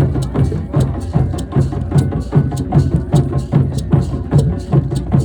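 Hand drums at a drum circle playing a steady rhythm of deep low beats and sharp slaps.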